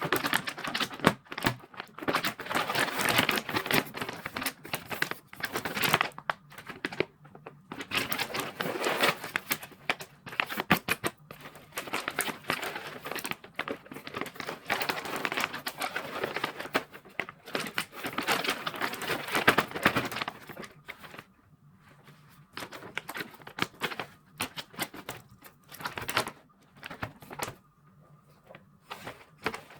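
Packaging being handled by hand and torn open as a parcel is unboxed: dense crinkling and tearing for most of the time, thinning to scattered rustles and light knocks in the last several seconds.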